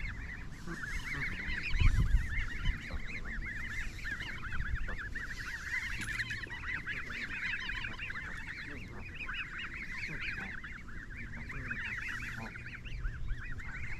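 Canada geese and their goslings calling: a steady chatter of many short, high peeps overlapping throughout. A few low thumps sound about two seconds in.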